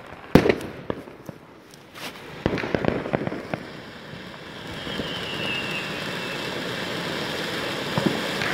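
Ground fountain firework burning. A sharp bang comes about half a second in, then bursts of crackling pops over the first few seconds, then a steady rushing hiss of sparks that builds from about four seconds on.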